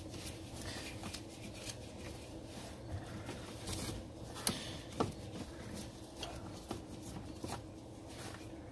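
Light, scattered clicks and knocks of a screwdriver working the fasteners on a car's plastic air intake duct, with two sharper clicks about half a second apart about halfway through.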